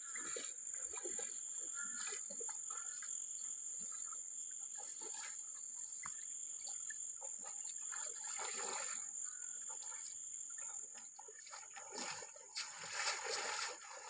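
Insects droning with a steady high buzz, with water splashing under wading feet in a shallow stream about eight seconds in and again near the end.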